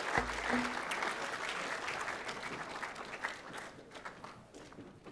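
An audience in a hall applauding, the clapping thinning out and dying away over the last couple of seconds.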